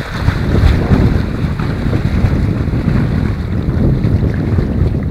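Strong wind buffeting the microphone, a dense low rumble, with sea waves washing underneath.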